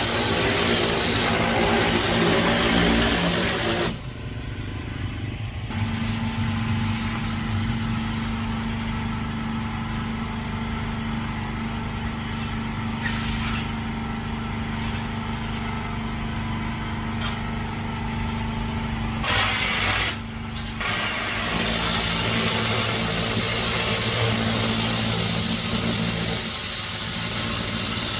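Engine-driven pressure washer running steadily, with the loud hiss of its water spray for the first four seconds and again from about 21 seconds on; in between the spray stops and only the engine's steady hum is heard.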